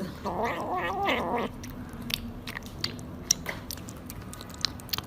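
A cat's wavering yowl for just over a second, then irregular crunchy chewing clicks.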